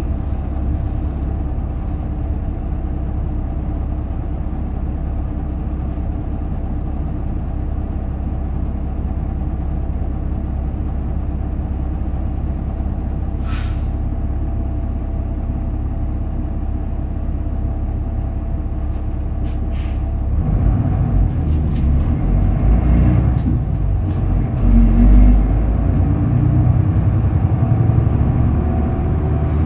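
Isuzu KK-LR233J1 city bus's diesel engine running steadily at idle, with a brief hiss of compressed air about halfway through. About two-thirds of the way in the engine takes load and grows louder and rougher as the bus pulls away, with rattles and a rising whine near the end.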